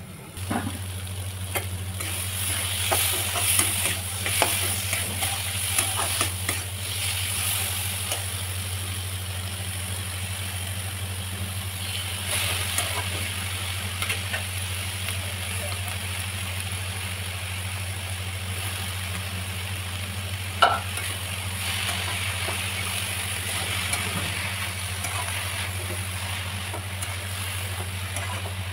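Spinach leaves and potato pieces sizzling in a hot kadai while a spatula stirs and scrapes them, with one sharp knock about two-thirds of the way through. A steady low hum runs underneath.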